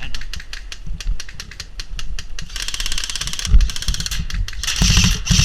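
Airsoft guns firing in rapid runs of sharp clicks, about ten shots a second, with louder, denser bursts about two and a half seconds in and again near the end.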